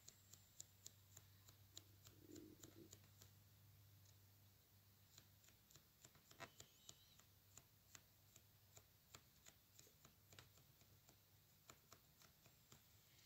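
Near silence broken by faint, irregular soft ticks as a cosmetic sponge is dabbed again and again onto a fingernail, over a faint low steady hum.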